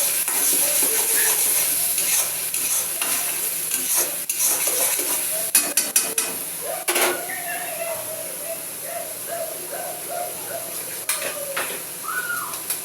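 Onion, garlic and green chilli paste sizzling in hot mustard oil as a spatula stirs it, scraping and knocking against the pan several times.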